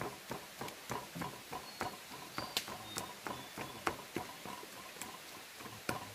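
Irregular clicks and knocks, two or three a second, with a few brief high chirps in between.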